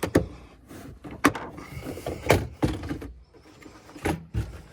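Plastic interior trim panels of a Holden VE Commodore being handled and worked loose, giving about six sharp, uneven clicks and knocks.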